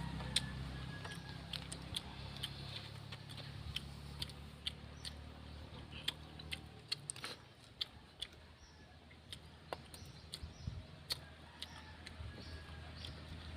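Eating by hand: irregular small clicks and taps of shells and food being handled and chewed, a few each second, over a low steady hum.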